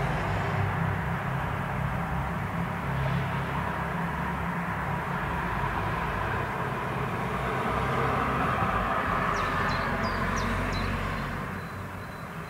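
Traffic: a steady low rumble with road noise that fades away near the end.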